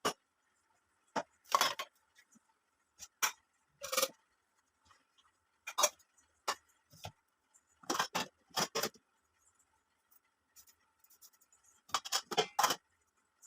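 Kitchen utensils and vessels clinking and knocking at irregular moments, some in short clusters, over a faint steady high tone.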